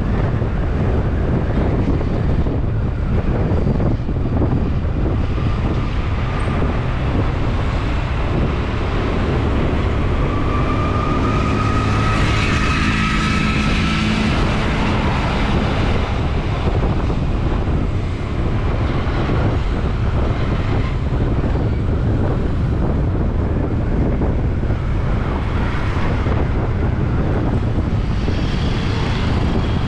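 Wind buffeting the microphone while riding, mixed with city traffic noise. Around the middle a passing vehicle's engine note rises and then fades.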